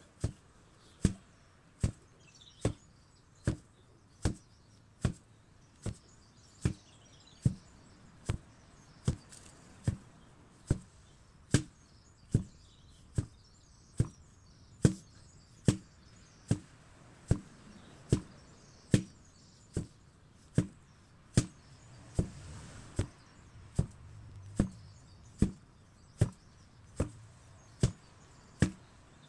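8 kg sledgehammer striking a target over and over in a steady rhythm, about one blow every 0.8 seconds, each a sharp knock with a low thud.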